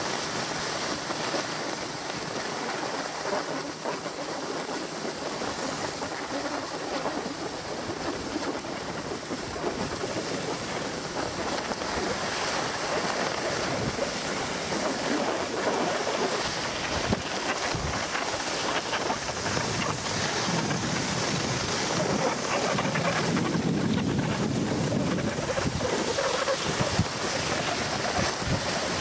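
Wind rushing over the microphone and the steady scrape of sliding over packed, groomed snow on a ski slope. The low buffeting of the wind grows stronger in the second half.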